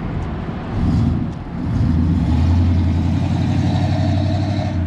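Car engine running nearby with a deep, steady note: it swells briefly about a second in, then holds a louder, steady run from about two seconds in and drops back near the end.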